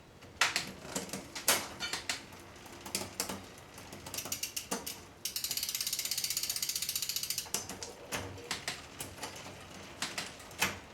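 Mountain bike drivetrain worked by hand: chain and rear derailleur clicking across the cassette cogs as the shifting is tested after a limit-screw adjustment. In the middle the rear hub's freehub pawls ratchet in a rapid, even run of ticks for about two seconds.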